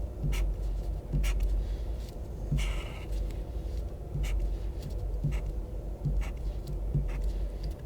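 Pink highlighter's felt tip drawn across paper in short strokes, roughly one a second, with one longer swipe about two and a half seconds in.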